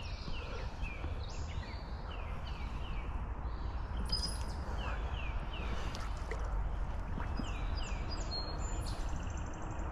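A songbird singing phrases of short, quickly repeated down-slurred notes, over a steady low rumble.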